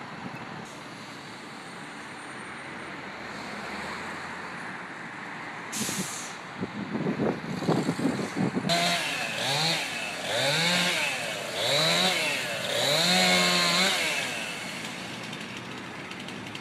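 An engine running steadily, a short hiss about six seconds in, then the engine revved up four times in quick succession, each rev climbing in pitch and holding briefly.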